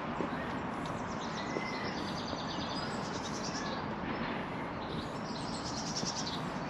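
Songbirds singing, with fast high trills and short whistled notes, over a steady outdoor background hiss.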